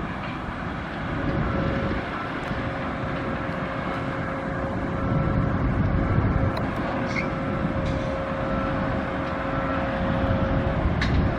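Steady rumble of vehicle engines, with a faint steady hum.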